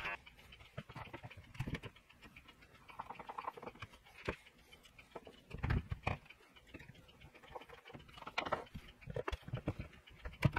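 Scattered light clicks and knocks from fitting a cabinet door onto concealed European cup hinges: metal hinge parts snapping and tapping together, with a screwdriver against the hardware.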